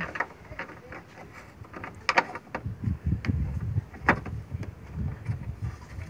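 Hard plastic clicks, knocks and rattles as a headlight assembly's metal retaining rod is slid back into place and the plastic trim panel is handled. The sharpest clicks come about two seconds in and about four seconds in.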